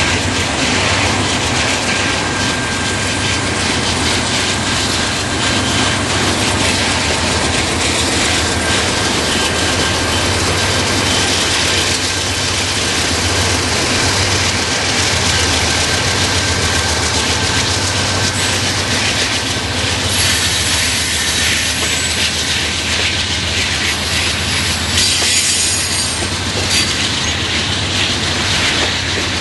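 BNSF freight train passing close by: diesel locomotives and loaded flatcars, with steel wheels rolling on the rails. Thin high wheel squeals come and go, strongest about two-thirds of the way in.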